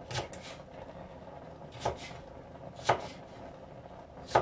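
Kitchen knife chopping green pepper on a cutting board: four separate strokes about a second apart.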